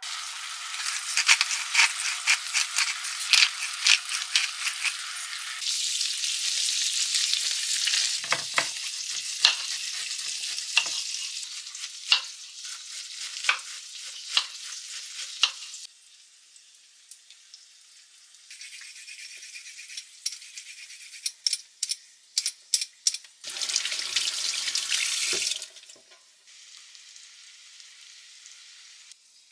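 Food sizzling in an oiled frying pan, with sharp knife strokes on a wooden cutting board as cabbage is shredded. The sizzle stops about halfway, leaving quieter scattered knife taps and a short burst of hiss a few seconds before the end.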